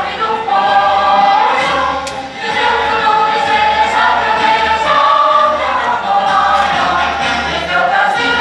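A choir singing, many voices together holding long sung notes.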